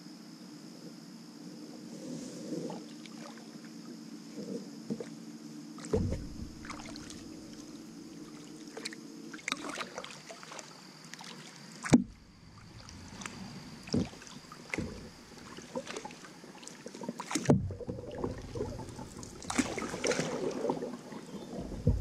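Canoe paddling: water sounds with sharp knocks of paddles against the hull, the sound changing abruptly twice.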